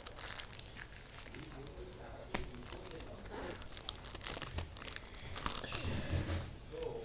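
Crinkling plastic packaging being handled, with scattered clicks and one sharper click about two and a half seconds in.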